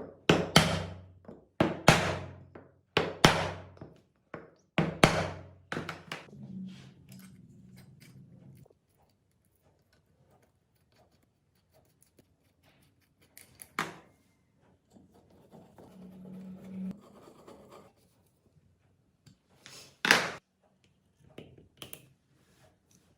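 Workshop knocks during an engine restoration: about five heavy thunks in the first six seconds, each ringing briefly, then a few scattered knocks later on.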